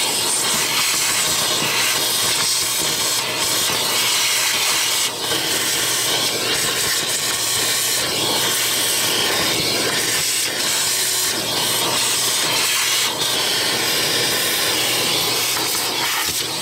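A steady, loud hiss that holds level throughout, with no clear rhythm or single knocks.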